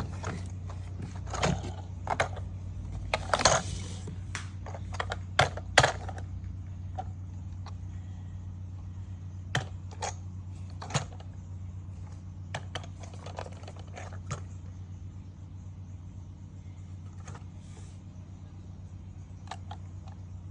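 Handling noises of unboxing: clicks, taps and rustles of packaging and plastic parts, busy through the first six seconds and then occasional single clicks, over a steady low hum.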